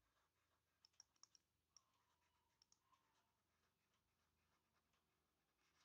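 Near silence, with a scattering of faint, sharp clicks in the first three seconds: a stylus tapping on a tablet while handwriting.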